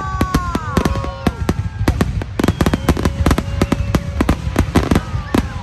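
Fireworks display: rapid crackling reports, several a second, over a constant low rumble of booms. Whistling tones slide down in pitch about the first second, with more held whistles later.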